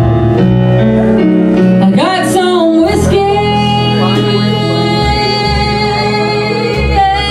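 Live band music with stage keyboard: stepping keyboard notes, then a long high note that slides in about two seconds in and is held steady for around four seconds, dipping as it ends.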